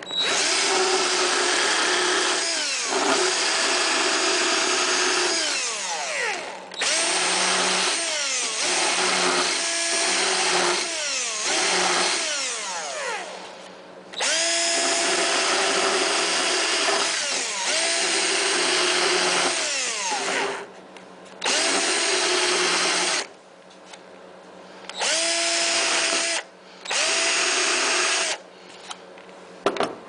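Cordless drill spinning a bit in a hole in the plastic dash console of a zero-turn mower, enlarging the hole to fit a 12 V power socket. It runs in long stretches with its whine sagging and recovering under load, then in three short bursts near the end, the pitch rising each time the trigger is pulled.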